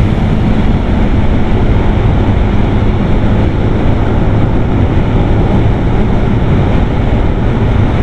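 Motorcycle being ridden at a steady cruising speed: the engine's low, steady hum sits under heavy wind rushing over the microphone.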